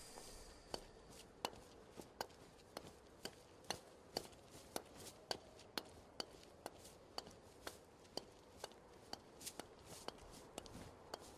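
Faint footsteps: sharp, clicking steps at a steady pace of about two a second.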